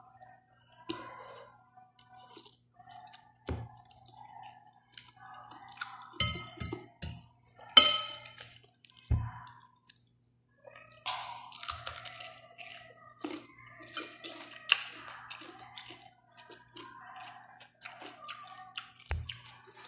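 A person eating noodle soup: slurping and chewing mouth sounds mixed with sharp clicks of a fork and spoon against a ceramic bowl. The loudest is a single sharp click about eight seconds in.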